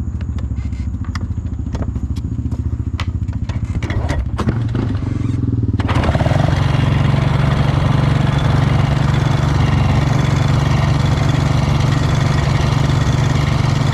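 Honda TRX450R ATV's single-cylinder four-stroke engine idling with sharp intermittent ticks, then about six seconds in turning louder and noisier and holding steady. The owner takes the noise for a rattling clutch basket; a friend suspects a loose clutch screw.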